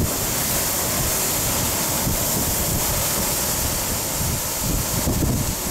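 Heavy surf crashing and churning in a rocky sea inlet, throwing up spray, under strong wind buffeting the microphone with an uneven low rumble.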